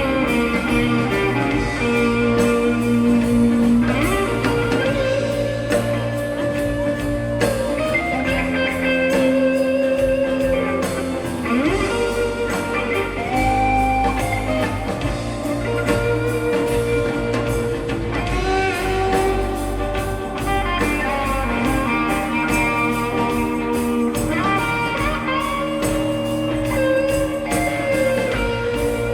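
Live blues-rock band playing an instrumental passage: an electric guitar lead of held notes that bend up and down in pitch, over bass and drums keeping a steady beat.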